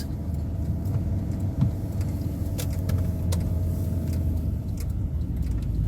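Steady low engine and road rumble inside a Volkswagen T4 van's cabin, with a few faint clicks.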